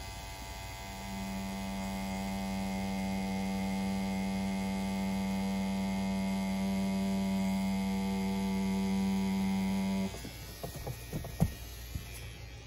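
CNC P6 rotary tattoo pen motor running at a steady pitch, a smooth hum-like buzz with the stroke set to 3.8 mm; it stops suddenly about ten seconds in, followed by a few light clicks.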